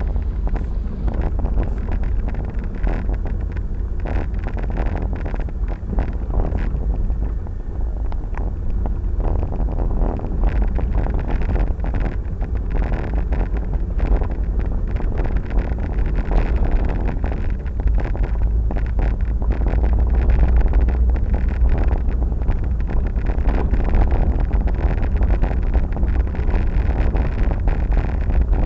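Wind buffeting the microphone while on the move, over the steady running noise of a vehicle, loud and unbroken throughout.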